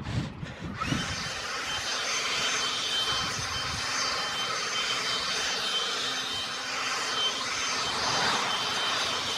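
Handheld leaf blower running steadily at speed with a high whine, blowing grass clippings off a footpath; it starts up about a second in, after a few handling knocks.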